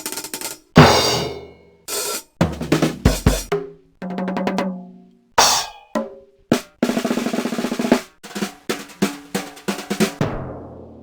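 Drum kit played in a string of short separate clips: quick fills, single big hits whose drums and cymbals ring down, and a fast snare roll about seven seconds in. The last group of hits rings out slowly near the end.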